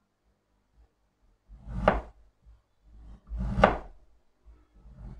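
Kitchen knife cutting through a piece of peeled ginger on a wooden cutting board: three separate cuts about a second and a half apart, each with a knock on the board.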